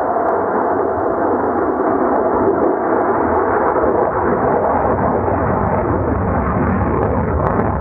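Loud, steady jet engine noise from a Saab JAS-39 Gripen fighter flying a tight high-speed turn.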